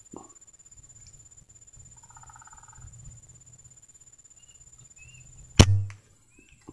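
A single shot from a bullpup PCP air rifle firing a slug: one sharp crack about five and a half seconds in, ringing briefly before it dies away. Beneath it a steady high whine.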